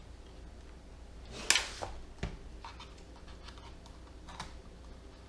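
Light clicks and taps of tools working at a laptop's parts during disassembly, with a sharper click about a second and a half in and a few fainter ones after.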